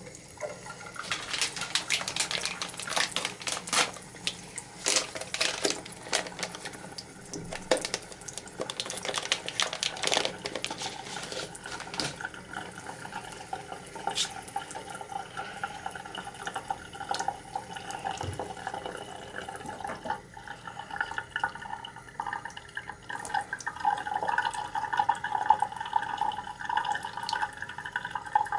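Bathroom sink faucet running, its stream splashing into the basin with many sharp splashes. In the second half the splashing settles into a steadier, more even tone.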